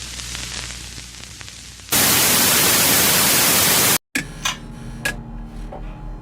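A loud burst of static white noise lasts about two seconds and cuts off sharply, after a faint hiss. After a brief gap comes a low buzz with scattered sharp clicks.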